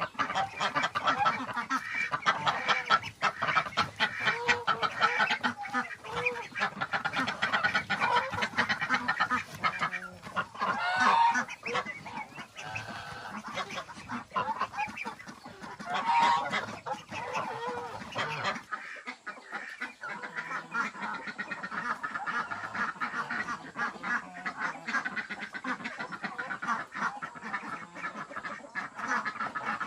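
A flock of farm poultry calling continuously, with many short calls overlapping. About two-thirds of the way through, the low background drops away abruptly and the calls carry on a little quieter.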